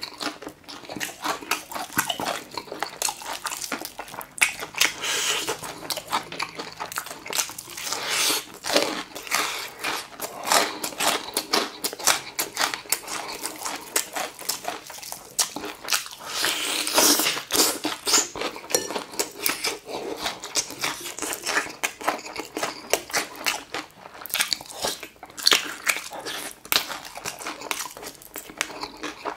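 A person biting and chewing crispy fried chicken, the fried crust crunching and crackling in a steady run of crisp bites.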